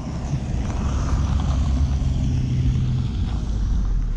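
An SUV driving slowly past on a gravel road: a steady engine hum with the noise of its tyres on the gravel. The engine tone drops away about three seconds in as the vehicle moves off.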